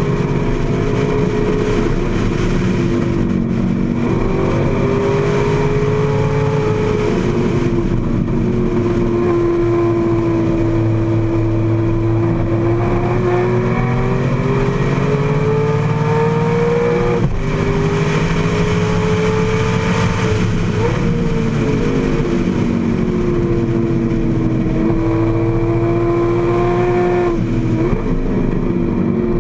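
AC Cobra's V8 racing engine heard from inside the open cockpit, its pitch climbing under throttle and falling back again and again through the corners. The pitch drops suddenly about halfway through and again a few seconds later. Wind rushes past the open car throughout.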